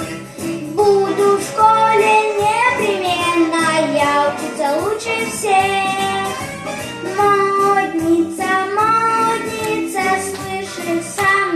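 A young girl singing a children's pop song over a backing track, her voice gliding and holding notes in a clear, bright line.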